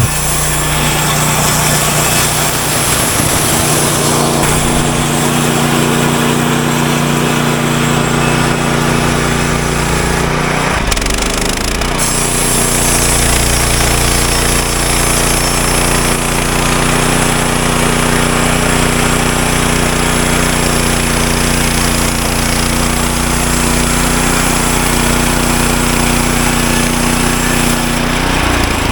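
Woodland Mills HM126 portable band sawmill running steadily with its small gas engine at speed, as in milling. Its engine note shifts briefly about eleven seconds in, then holds steady again.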